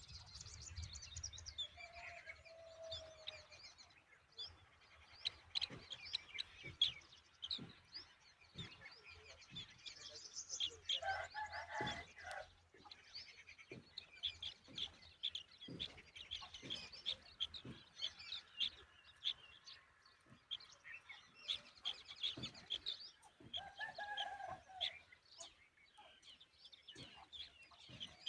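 Birds chirping over and over in short high notes, with a few lower, fuller calls about 2, 11 and 24 seconds in.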